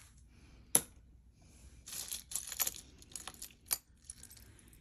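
Costume jewelry being handled and set down: a sharp click, then a run of small metallic clinks and rustling, and a few more light clicks.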